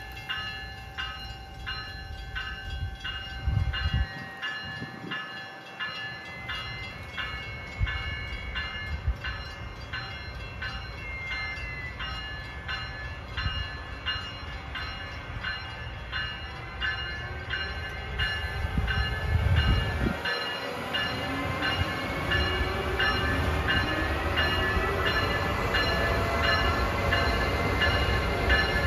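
Grade-crossing bell ringing in a steady, even repeat as an Amtrak ACS-64 electric locomotive approaches. From about two-thirds of the way in, the locomotive's whine rises in pitch and the train grows louder as it draws level.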